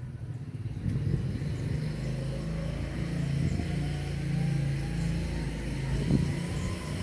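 A motor engine running, a steady low hum that gets louder about a second in, with a faint whine slowly rising in pitch.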